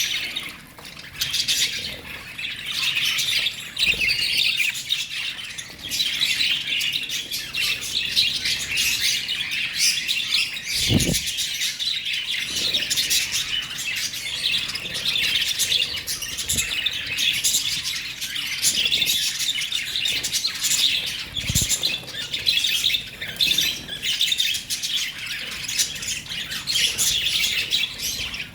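Lovebirds chirping and chattering without pause in rapid, high-pitched calls, with a few dull thumps, the clearest about a third and three quarters of the way through.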